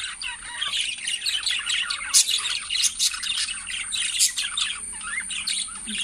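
A flock of budgerigars chattering and chirping continuously, many short calls overlapping, with a couple of louder sharp calls standing out about two and four seconds in.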